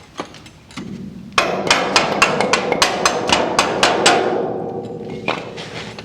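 A rapid run of sharp metallic clicks, about five a second, over a steady whirring noise that fades away after the clicks stop, from tool work fastening the lower trailing arm to the rear axle.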